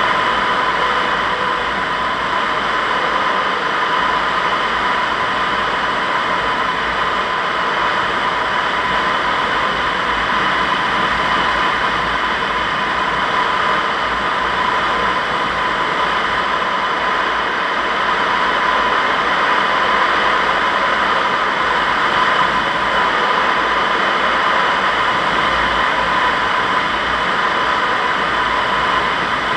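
Steady rush of airflow over a Zugvogel 3a glider in unpowered flight, with a steady whistling tone running through it.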